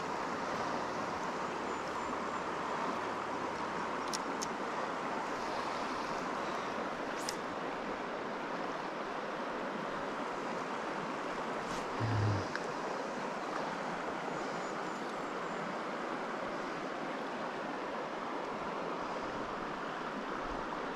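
Steady rushing of a mountain brook's flowing water, even throughout, with one brief low bump about twelve seconds in.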